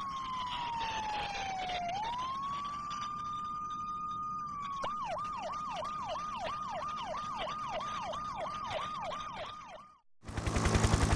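Fire truck siren: a slow wail that falls and rises again, then switches about five seconds in to a fast yelp of about three sweeps a second. It cuts off near the end, and a loud rapid low thumping starts.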